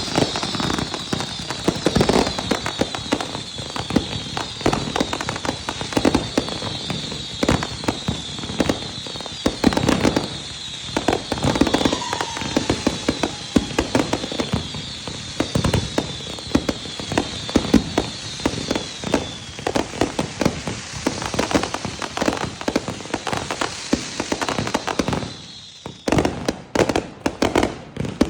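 Fireworks finale: a rapid barrage of overlapping bangs and crackle, with a high wavering whistle over the bangs through the first two-thirds. The barrage thins out near the end to a few last separate bangs.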